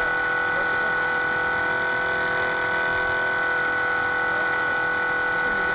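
Motor of a radio-controlled model boat, heard close up from its deck, running at a steady speed with a constant whine.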